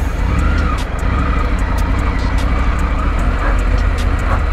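Triumph Tiger 900's three-cylinder engine running at low speed as the motorcycle rides over rough, rock-strewn ground, with scattered sharp clicks throughout.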